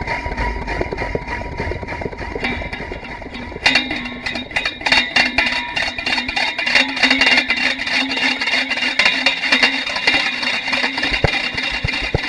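A DIY piezo-mic sound-effects pedal box, played by hand and run through heavy delay and reverb, making a dense, eerie wash of noise. About four seconds in it breaks into a rapid run of clicks and rattles over a steady low tone.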